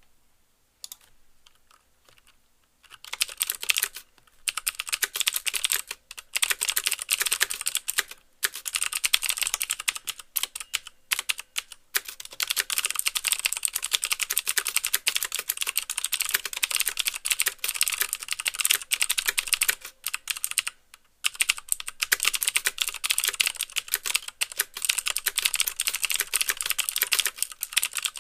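Fast typing on a mechanical keyboard with clicky Cherry MX Blue switches, each keystroke a sharp click with the clack of the key bottoming out. Only a few scattered keystrokes at first, then dense runs of typing from about three seconds in, with brief pauses twice.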